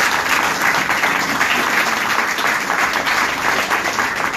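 Small audience applauding, many hands clapping steadily together, thinning out near the end.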